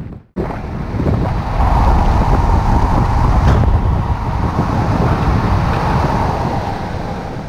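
Motorhome driving at road speed: steady engine, tyre and wind noise.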